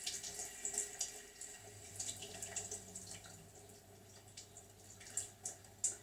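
Water splashing and trickling in irregular spurts, with a low steady hum coming in about one and a half seconds in.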